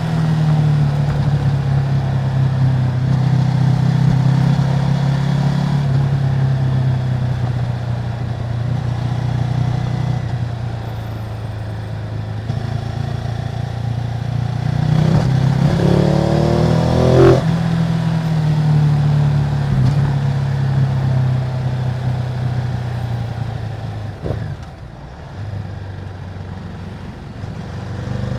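2018 Ducati Multistrada 950's Testastretta L-twin engine running through its stock exhaust: a steady low drone that rises in revs briefly a little past the middle and drops back, then eases off near the end.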